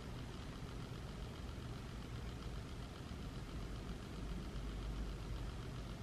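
A steady low hum, the background noise of the room, with no other event standing out.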